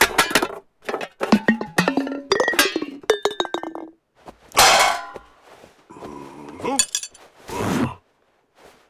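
Metal garden tools clinking and clanging against each other in a quick run of sharp knocks, each with a short ringing tone. Two brief bursts of rushing noise follow later.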